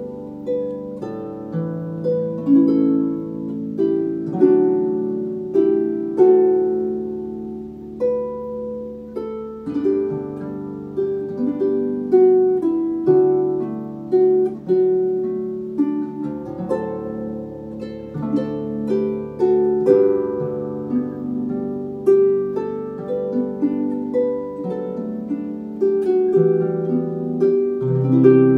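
Solo Dusty Strings FH36S lever harp playing a gentle melody over lower bass notes, each plucked string ringing and fading.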